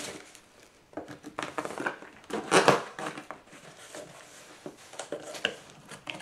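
Cardboard shipping box being opened by hand, its packing material rustling and crinkling in irregular bursts, loudest about two and a half seconds in.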